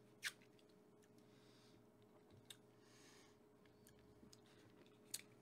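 Near silence: room tone with a faint steady hum, broken by a few small, sharp clicks, the clearest shortly after the start, another midway and one near the end.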